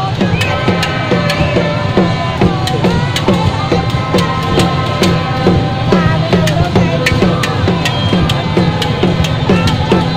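Loud music with a steady drum beat, about two and a half beats a second, played through a portable loudspeaker, with long held high notes over the beat.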